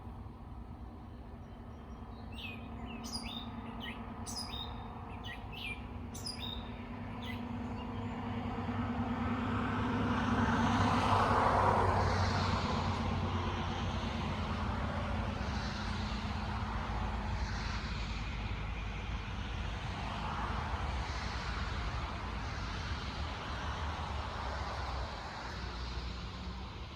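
A bird gives a series of short, quick, falling chirps in the first several seconds. Then a motor vehicle passes: its engine hum and road noise swell to a peak about halfway through and fade slowly, with a few faint bird calls over it.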